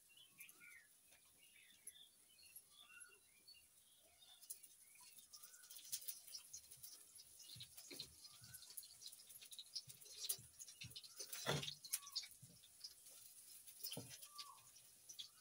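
Close-miked eating of instant noodles by hand: slurps, chewing and lip smacks in short clicks, with fingers working the noodles on a steel plate. Birds chirp faintly in the background.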